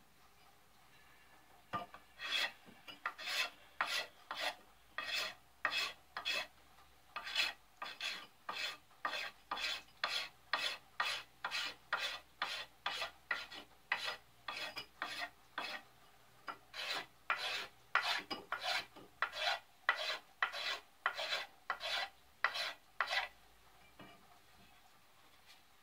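Blade scraping the factory varnish off a wooden ax handle in rough downward strokes, about two a second, peeling off shavings. The strokes start about two seconds in and stop shortly before the end.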